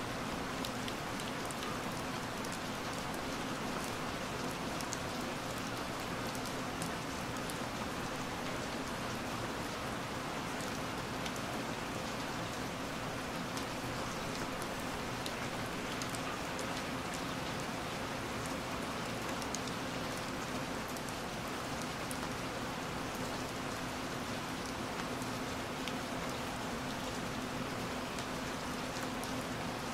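Steady rain falling, with scattered drops ticking against window glass.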